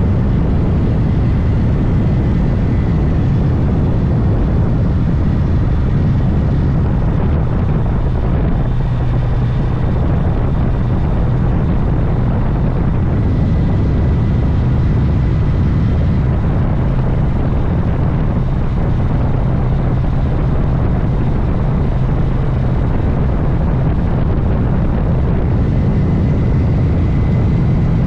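Honda Gold Wing motorcycle being ridden at a steady speed: an even engine drone under loud, continuous wind and road rush.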